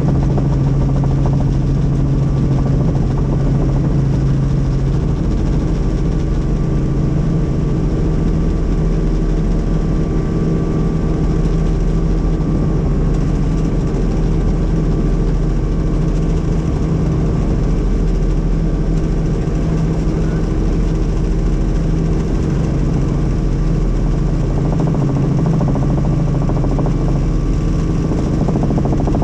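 Helicopter in flight: a steady, loud drone of rotor and engine with several constant hum tones.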